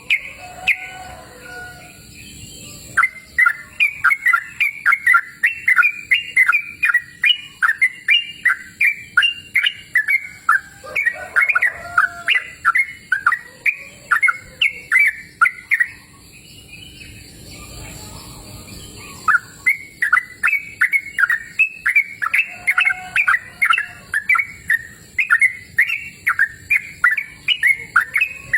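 Yellow-vented bulbul (trucukan) singing in two long runs of quick, chattering notes, about three a second, with a pause of a few seconds between the runs.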